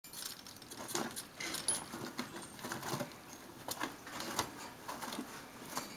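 Guinea pigs biting and crunching Pink Lady apple: irregular crisp crunches and chewing clicks.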